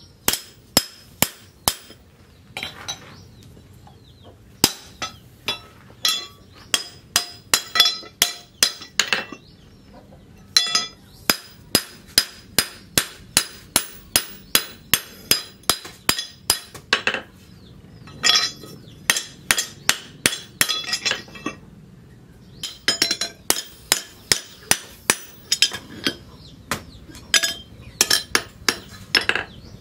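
Hand hammer striking an axe head held in tongs on a cylindrical steel post anvil, metal on metal with a short ring after each blow. The blows come about three a second in runs, with brief pauses between them.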